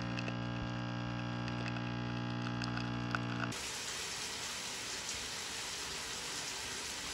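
A coffee machine runs with a steady electric hum for about three and a half seconds, then the sound cuts to a shower running, an even hiss of water spray.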